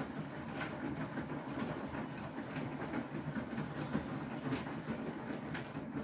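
Beko WTK104121W washing machine's drum turning with wet laundry tumbling during the main wash, a steady churning with light regular clicks about twice a second.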